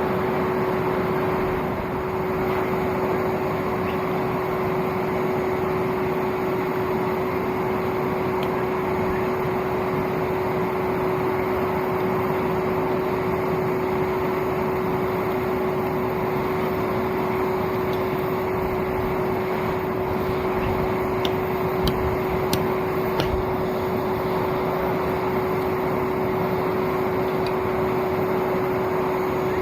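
Old vacuum cleaner motor running steadily as the air blower for a homemade coal forge, a constant whine over rushing air. A few faint clinks come about three-quarters of the way through.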